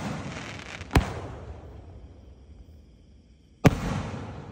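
3-inch display shells firing from a 25-shot fireworks cake. A shell launches with a sharp thump at the start and breaks with a second bang about a second in, and a fading hiss and echo follow. Near the end the next shell launches with another thump.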